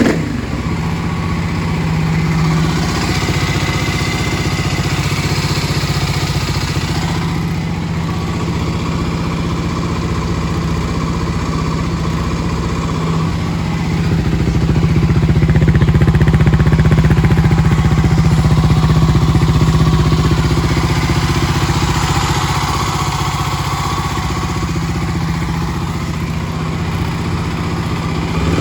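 Kawasaki KLX250S dirt bike's single-cylinder four-stroke engine, big-bored to 351 cc, idling steadily while warm. It gets somewhat louder for several seconds around the middle, then settles back.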